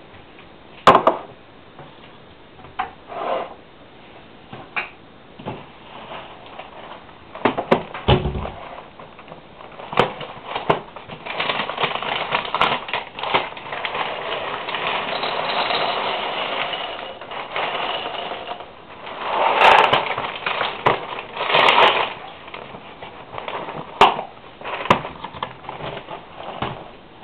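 Cheerios poured from the box into a bowl: a steady dry rattle of the cereal hitting the bowl for several seconds, then a second, shorter pour. Before it come a few knocks and a thud on the counter.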